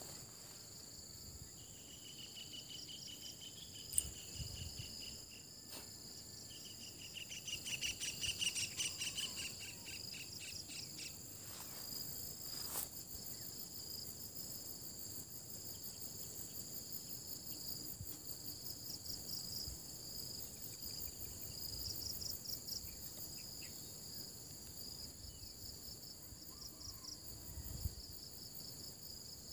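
Steady high-pitched chorus of insects, layered several pitches deep. A louder pulsing trill joins twice, the second time stronger, and a single click sounds about four seconds in.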